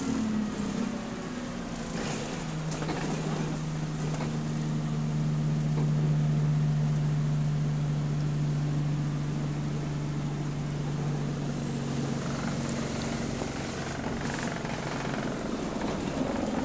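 The engine of an Alexander Dennis Enviro200 single-deck bus, heard from inside at the rear while the bus is driving. It is a steady low drone that shifts pitch in the first two seconds, then settles on one pitch and holds, growing a little louder midway.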